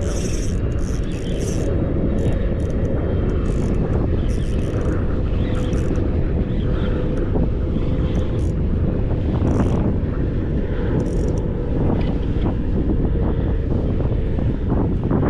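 Strong wind buffeting the microphone in a steady low rumble, with a faint steady hum underneath and short hissy bursts now and then.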